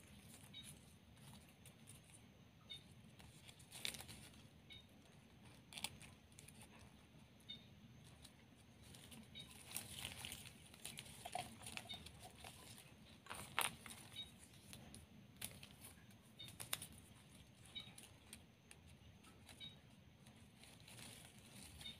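Faint rustling and crinkling of stiff plastic gift ribbon being folded and woven by hand, with a few sharper clicks as the strips are bent and tucked, the loudest about halfway through.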